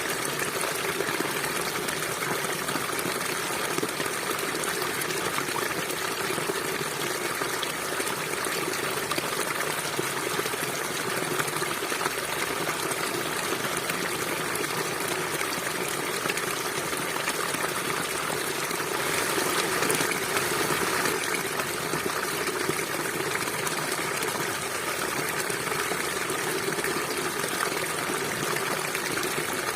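River water flowing in a steady rush, growing slightly louder for a couple of seconds about twenty seconds in.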